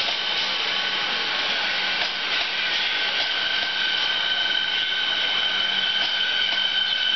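Melbourne Metro electric suburban train moving slowly past along the platform: a steady high-pitched whine from its electric traction gear over the rumble of wheels on track, with faint clicks.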